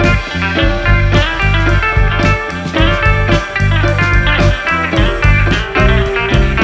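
Background music led by guitar, with a steady bass and beat.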